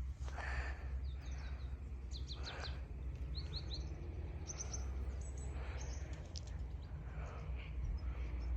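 Small birds chirping in short groups of quick high notes, several times, over a steady low rumble.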